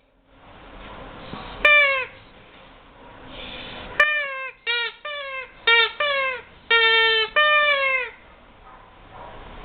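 Rubber squeaky toy being squeezed: one squeak, then a quick run of about seven squeaks, each a short pitched note that dips slightly, over a faint steady hiss.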